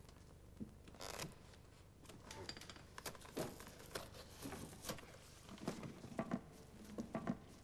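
Small scissors snipping and the old leather-and-paper binding of a 17th-century book being cut and torn away from its spine. It comes as a string of short, irregular rips and crackles, starting about a second in.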